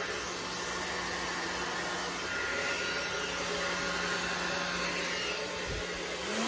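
Handheld hair dryer running steadily, its air stream blowing over wet acrylic paint: a rushing of air over a low motor hum. It is switched off at the very end, the motor hum dipping as it spins down.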